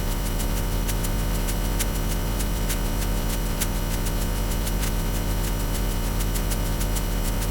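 Dense, steady mix of music and layered sound effects with a constant low hum and frequent crackling clicks, close to noise.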